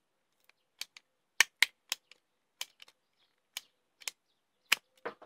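Dnipro-M ratchet pruning shears working through a thicker branch in stages: a series of sharp, uneven clicks as the ratchet advances with each squeeze of the handles.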